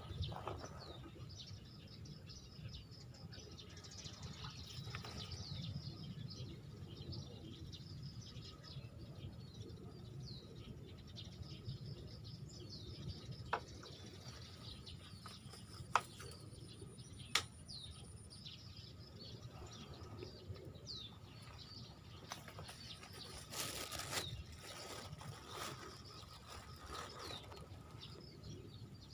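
Birds chirping in many short calls over a faint outdoor background. There are three sharp clicks around the middle and a brief burst of rustling about three-quarters through.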